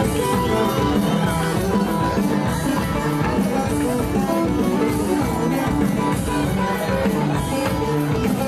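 Dance music with a steady beat, accompanying a hand-in-hand line dance.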